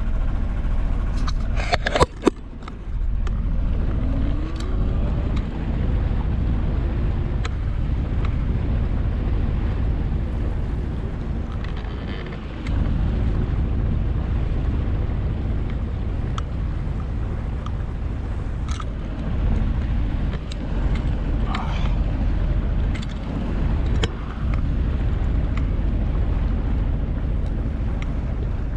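Sailboat's inboard engine running steadily as the boat motors in a calm, a low drone with wind and water noise over it. A sharp click about two seconds in.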